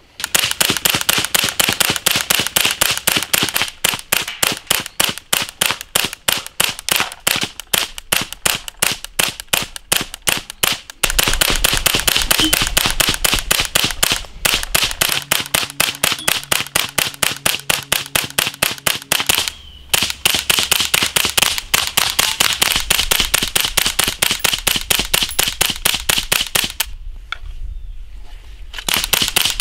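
Ruger 10/22-pattern semi-automatic rifle with a KG-Made EOS-22 integrally suppressed barrel firing .22 Long Rifle in rapid strings of several shots a second. The firing breaks off briefly twice, once just before halfway through the last third and once near the end, then picks up again.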